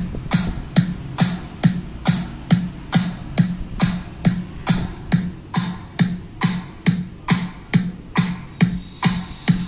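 Electronic dance music with a steady beat, a little over two beats per second, played through a counterfeit JBL Xtreme portable speaker fed from its 3.5 mm aux input.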